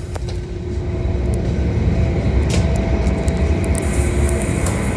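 Steady low rumble of a car ferry under way, with a faint steady hum above it.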